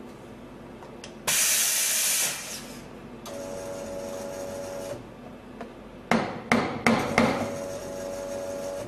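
Schaerer Coffee Art Plus Power Steam wand purged with a short, loud hiss of steam lasting about a second, clearing the wand after it has been wiped. Later a steady hum runs twice, and four sharp knocks come close together in between.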